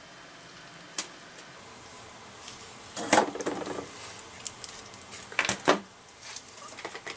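A sharp click about a second in, then two short bouts of clattering and rattling, one about three seconds in and another a little past five seconds, as tools and small items are handled and set down on a workbench.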